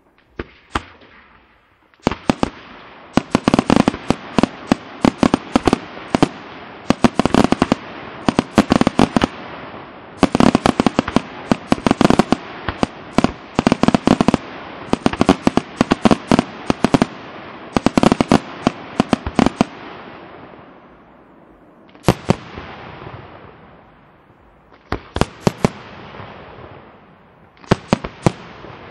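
Senatore Fireworks aerial shells bursting in rapid volleys: many sharp bangs a second over a crackle from about two seconds in until about twenty seconds. After a short lull, a few sparser bangs come near the end.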